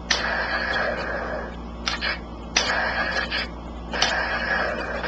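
Toy double-barrelled shotgun's electronic firing sound played through its small speaker, set off about six times at uneven intervals, each a sharp start with a hissing tail; the sound effect still works.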